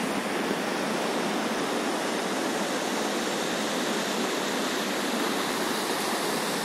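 Steady rush of water from a swollen mountain stream in flood, an even roar with no break.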